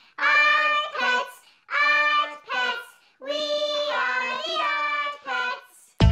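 A voice singing the last phrases of an upbeat theme song, in several short held phrases with brief gaps. A different music track cuts in abruptly right at the end.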